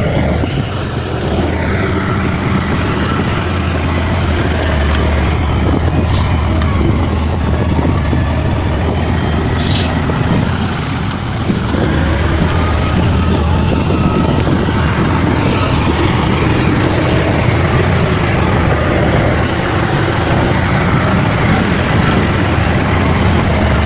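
Bulldozer's diesel engine running steadily, a deep continuous drone with mechanical clatter over it, and two brief sharp high-pitched sounds about six and ten seconds in.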